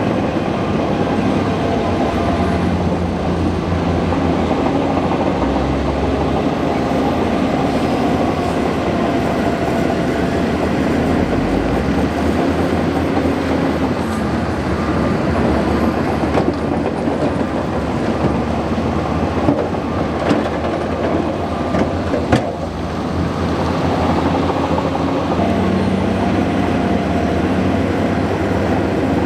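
Bulldozer's diesel engine running steadily under load, its pitch rising and falling a little, with a few sharp metallic knocks about two-thirds of the way through.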